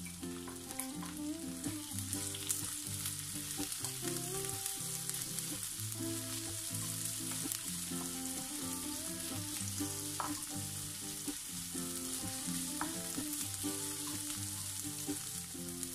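Sliced onions and ginger sizzling in hot cooking oil in a nonstick wok, stirred with a wooden spatula. A soft melodic background track plays underneath.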